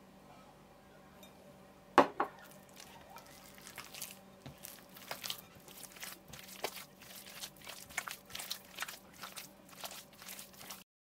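Hands kneading soft butter into sticky bread dough in a glass bowl: a sharp knock about two seconds in, then irregular wet squelches and clicks as the dough is squeezed and folded, cutting off just before the end.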